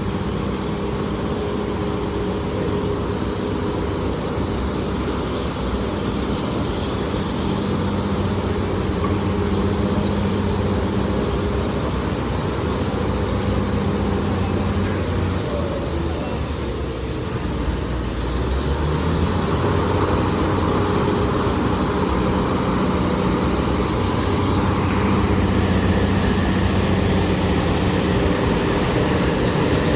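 BEML BD355 crawler bulldozer's diesel engine running steadily with a high whine over it. About sixteen seconds in, the engine eases off and the whine falls away, then both rise again and run on a little louder.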